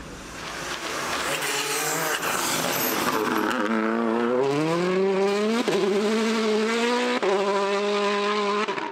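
Rally car engine revving hard under acceleration, its pitch climbing steadily, with two brief breaks like quick gearshifts in the second half. A rush of noise comes before the engine note stands out.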